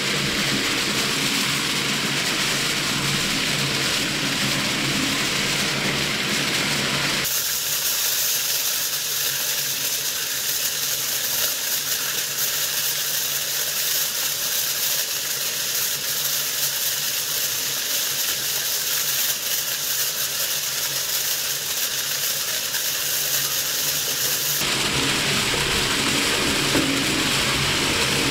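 Twin-shaft shredder's cutter discs running and tearing up aluminium kitchen foil: a steady machine hum under a crinkling hiss. About seven seconds in, the sound switches abruptly to a hiss with the hum gone, and the hum returns a few seconds before the end.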